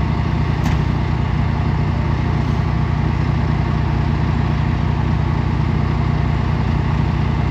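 A large engine idling with a steady low drone.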